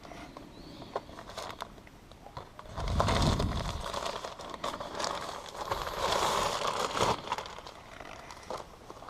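Rustling and crinkling handling noise with scattered light clicks, loudest about three seconds in and again around six seconds in.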